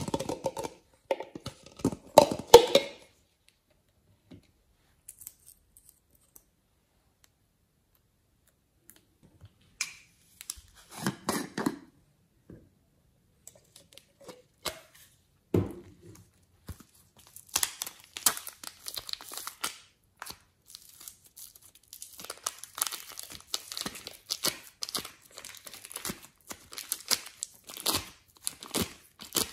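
Slime and clay being worked by hand, giving crinkly, crackling squishes. A few crackles at the start, a near-silent gap of several seconds, scattered crackles, then dense, continuous crackling through the second half.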